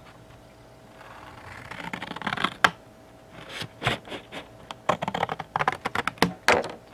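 Scissors cutting through the cardboard of a Funko Pop box: a scraping cut that builds about a second in, then a quick run of sharp clicks and crackles as the cardboard is worked apart.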